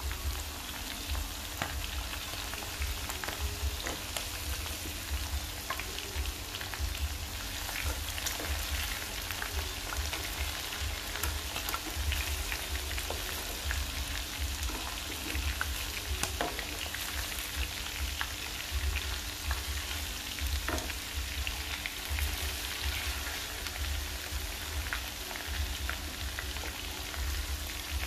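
Pieces of field rat coated in lemongrass and chili sizzling and crackling steadily in hot oil in a frying pan. Occasional sharper clicks as metal tongs turn the pieces against the pan.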